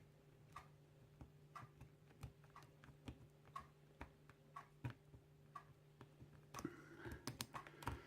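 Faint, irregular clicks of a small hook pick working the pin stack of a cheap cast bike-lock cylinder under light tension, with a quicker run of clicks and scraping near the end. The pins are loose and no binding pin is found. A low steady hum runs underneath.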